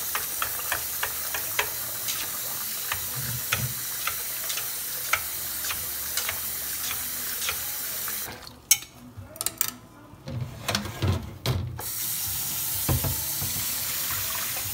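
Cold water from a kitchen faucet running into a stainless steel pot of cooked rice vermicelli, with chopsticks clicking against the pot as the noodles are stirred and rinsed until the water runs clear. About eight seconds in, the running water stops for about four seconds, with a few knocks and thuds, then runs again.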